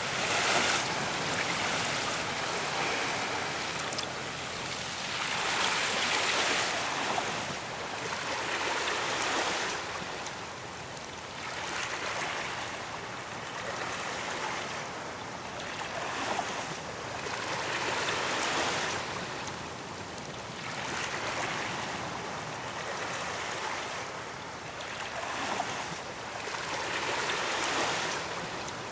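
Sea waves breaking and washing up on a beach, the surf swelling and easing every two to three seconds.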